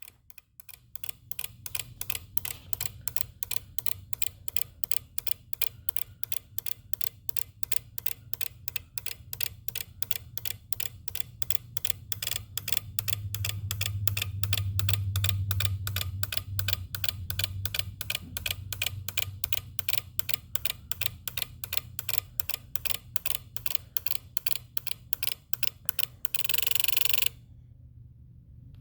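Rapid, evenly spaced clicking from a 2018 Jeep Wrangler JL, a few clicks a second, with its auxiliary battery on a charger, over a low steady hum. Near the end a short hiss comes and the clicking stops.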